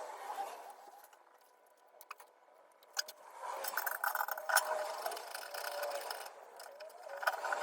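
Small clicks and clinks of metal parts being handled, then from about three and a half seconds in a run of scraping and rustling with many light clicks, as thread-seal tape is wrapped onto a brew-kettle heating element's threaded fitting.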